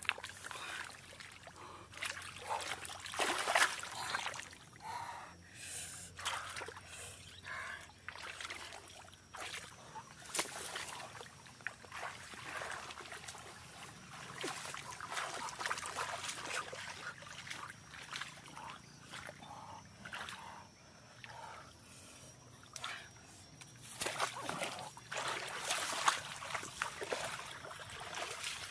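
Water splashing and trickling, with irregular splashes and sloshes; the busiest stretches are a few seconds in and again near the end.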